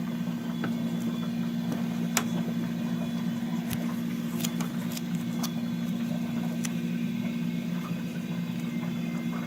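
A steady low machine hum, with a few faint clicks and light taps from hands handling tape and catheter tubing.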